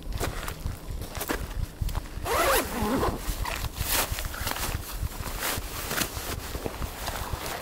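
A zipper is pulled once, about two seconds in, among scattered short clicks and handling sounds.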